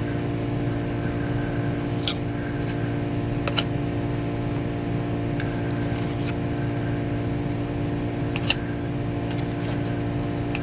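Baseball cards being handled and flipped by hand, with a few brief sliding snaps, over a steady low background hum.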